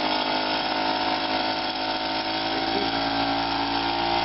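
Solex 5000's small two-stroke moped engine running fast and steady, raised off the tyre so it turns unloaded, as its carburettor setting is tried out.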